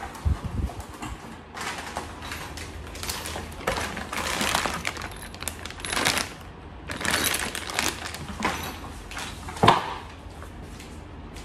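Cardboard flat-pack packaging and a plastic bag of small fittings being handled, rustling and crinkling in irregular bursts, with one sharp knock a little before the end.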